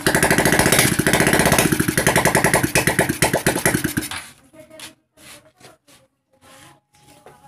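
Small single-cylinder motorcycle engine, the Honda RS125's, turning over and running with a rapid, even pulsing for about four seconds, then cutting off suddenly.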